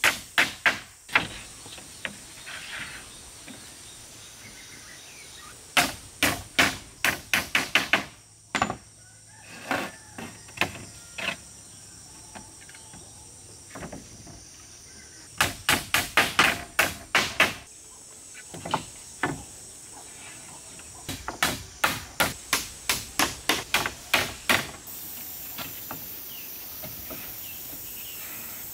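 A hand tool striking wood in quick runs of about five blows a second, each run lasting a second or two with pauses between. Birds chirp faintly in the background.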